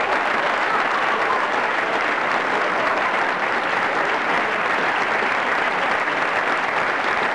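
Audience applause: dense, steady clapping at an even level throughout.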